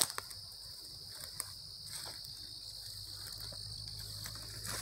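A chorus of crickets and other night insects making a steady high-pitched drone, with faint scattered rustles and light knocks beneath it.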